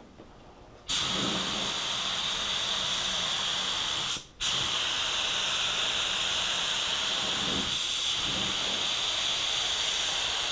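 Black Widow HTE gravity-feed spray gun hissing steadily as it sprays clear coat, starting about a second in. The hiss stops for a moment just after four seconds, as the trigger is let go between passes, then carries on.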